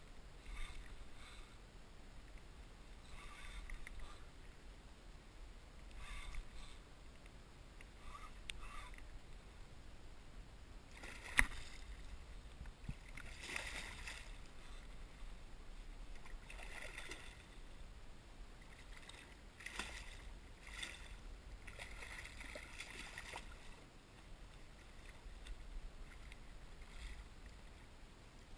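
A hooked striped bass splashing and thrashing at the surface beside a kayak, in several spells of splashing, with water lapping at the hull. A single sharp knock comes about eleven seconds in.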